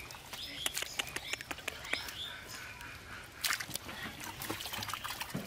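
Bare hands digging in soft, wet mud: irregular wet squelches and sharp sucking clicks, with a louder cluster about three and a half seconds in.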